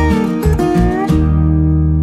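Background music on acoustic guitar: a few plucked notes with sliding pitch bends, then a final chord struck about a second in and left ringing and slowly fading.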